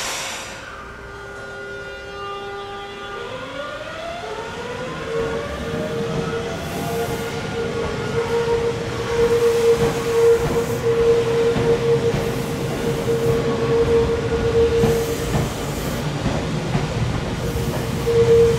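Electric train pulling away: a brief burst of noise at the start, then its traction motors whine in tones that glide upward about three seconds in and settle into one steady tone, with the running noise of the train growing louder.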